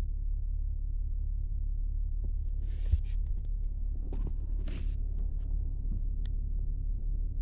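A steady low rumble, with rustling and light knocks from about two and a half seconds in as the phone is moved and handled.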